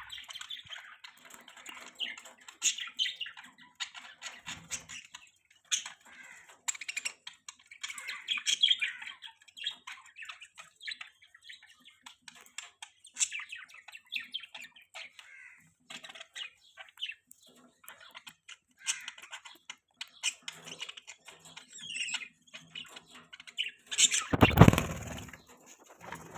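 A group of budgerigars chirping and chattering in many quick, short calls. About three-quarters of the way through comes one louder, fuller noise, a thump or flutter.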